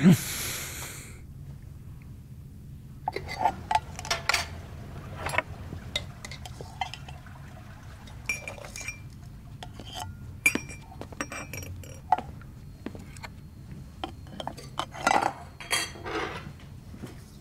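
Metal tin, its lid and a cup being handled on a table: a string of light knocks and ringing clinks, over a steady low hum.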